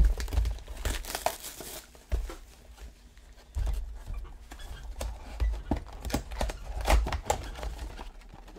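Sealed trading-card box being unwrapped and opened by gloved hands: packaging crinkling and tearing, with irregular soft thumps as the box is handled.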